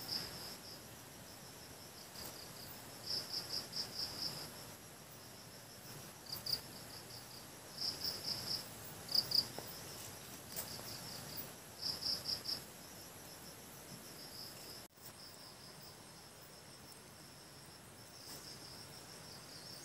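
Crickets chirping in short trains of rapid pulses, a new train every one to three seconds, over a faint steady high-pitched hum. The sound cuts out for an instant about fifteen seconds in.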